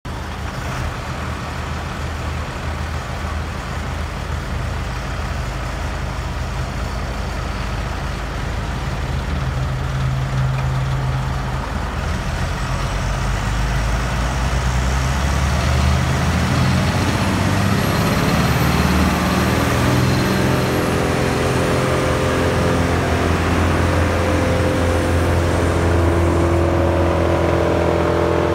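Morbark Hurricane 2400XL drum chipper's Caterpillar turbo diesel engine running, speeding up about halfway through and then holding steady at a higher, louder speed.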